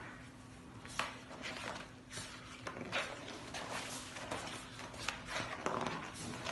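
Pages of a wallpaper sample book being turned by hand: the stiff sample sheets rustle and flap, with a page turn about once a second.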